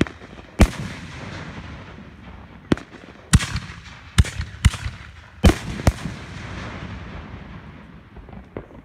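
Fireworks going off in quick succession: about seven loud, sharp bangs at uneven intervals, each trailing off in a rolling echo, with a few smaller pops between them.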